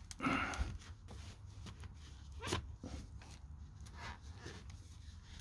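Handling noises from pressing a wet coffee-grounds and sawdust briquette out of a plastic pipe mould: a short rushing noise at the start, a sharp click about two and a half seconds in, and small scrapes and knocks.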